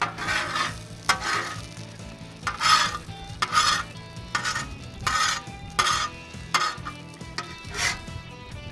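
Metal spatula scraping across a Blackstone steel griddle top in about ten short strokes, with food sizzling on the hot plate.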